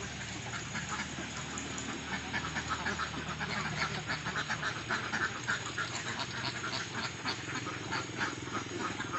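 A flock of Indian Runner ducks feeding greedily from a tub, quacking over a dense, continuous patter of short sharp clicks.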